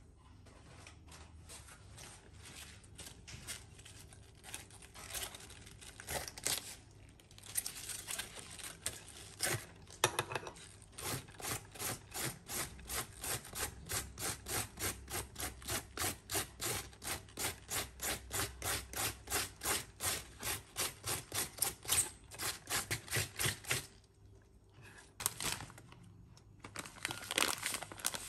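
Cabbage being shredded against a handheld cabbage peeler over a wooden cutting board: slow, uneven rasping strokes at first, then a fast even run of about four strokes a second. Near the end a plastic packet crinkles.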